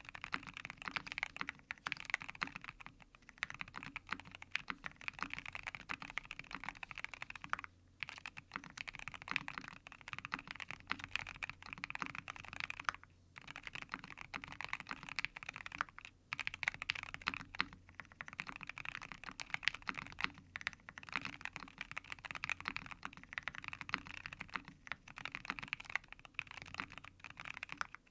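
Fast, continuous typing on a Transition Lite mechanical keyboard with Akko Rosewood linear switches, PC plate and full foam, the keystrokes blending into a steady clatter with short breaks about 8, 13 and 16 seconds in.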